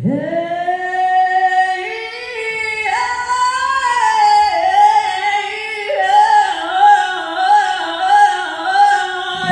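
A woman singing unaccompanied, holding long high notes that break into quick wavering runs about halfway through, with a little room echo.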